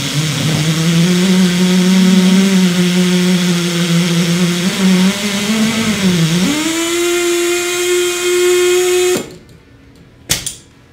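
Air motor of a 208B portable pipe beveling machine running while it machines the end of a stainless steel pipe. Its pitch dips about six seconds in, then settles higher and steady, and it stops suddenly about nine seconds in; a short clank follows a second later.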